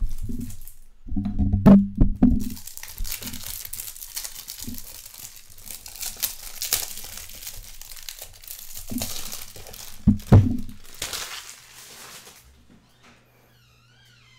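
Plastic shrink wrap on a pack of Ultra Pro top loaders being torn open and crinkled by hand, with a few low handling thumps in the first couple of seconds and again around ten seconds in. The crinkling fades out shortly before the end.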